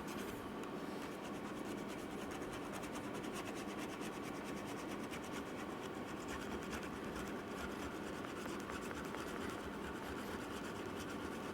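Faint, steady scraping of old battery adhesive off the inside of a MacBook Pro's case, in many quick, even strokes.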